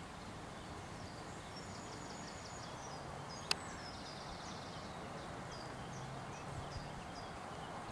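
Open-air ambience: small birds chirping and trilling over a steady background hiss, with one sharp click about three and a half seconds in.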